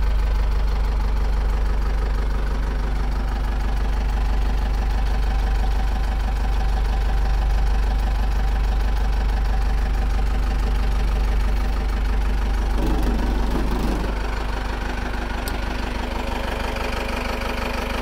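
Cummins 4BT four-cylinder turbo diesel idling steadily, heard from inside the truck's cab. About 13 seconds in there is a brief bump, after which the engine sounds slightly quieter.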